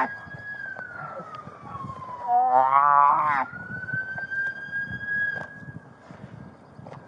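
A siren wails, fainter than the nearby sounds, its pitch sliding slowly down and then back up. About two seconds in, a restrained man lets out a loud, strained cry lasting about a second.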